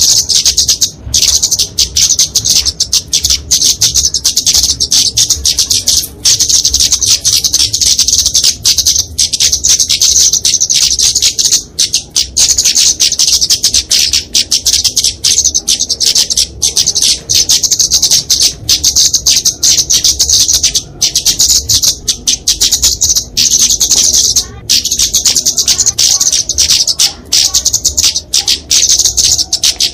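Kemade flowerpecker (genus Dicaeum) giving fighting calls: a dense, rapid stream of high-pitched, thin chips, nearly continuous with only brief gaps. These are the aggressive calls used as a lure for small birds.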